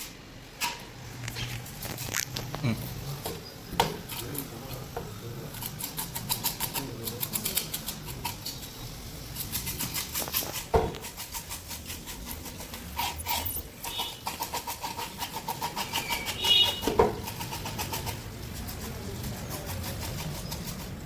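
Knife working on a barracuda at a fish-cutting board: runs of rapid scraping strokes with a few heavier chops.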